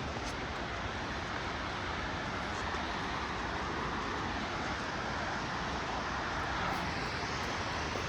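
Steady rushing of fast-flowing water, an even unbroken noise with no distinct events.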